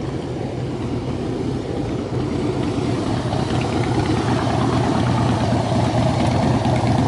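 Cruiser motorcycle engine running at low speed as the bike rolls in, growing louder as it comes close.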